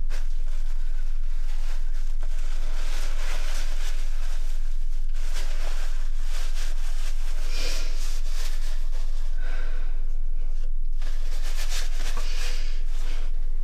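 A woman crying into a tissue, sniffling and breathing in several short, noisy rushes, over a steady low electrical hum.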